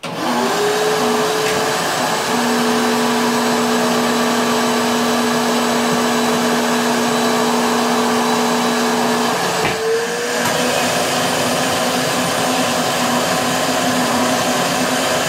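Vacuum motor of a homemade vacuum former spinning up and running steadily with a whine, drawing the heated plastic sheet down over the molds on the perforated table. About ten seconds in there is a click and the whine's pitch rises slightly.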